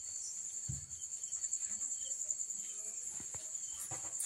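Crickets chirping, a steady high-pitched trill, with a few faint soft knocks about a second in.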